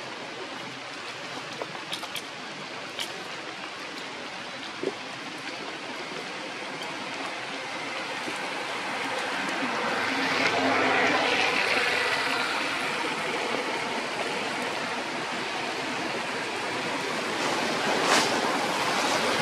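Steady rushing outdoor noise that swells to its loudest about ten to twelve seconds in, with a few short faint clicks.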